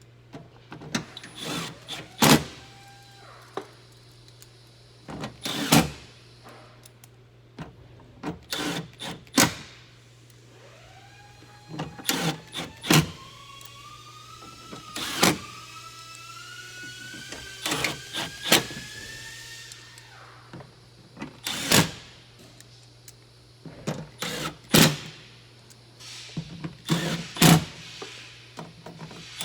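Sharp clicks and knocks of tools and trim parts as a car door panel is being bolted back on. In the middle, a small electric motor whines for about eight seconds, rising steadily in pitch.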